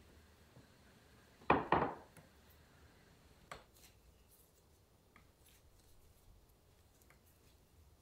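Gloved hands working crystal mooncake dough. Two quick, sharp handling sounds come close together about a second and a half in, another comes about two seconds later, and then only faint soft ticks of kneading follow.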